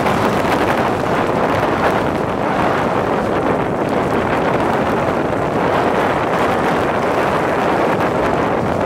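Strong tropical-storm wind buffeting the microphone in a loud, steady rush, with heavy surf breaking underneath.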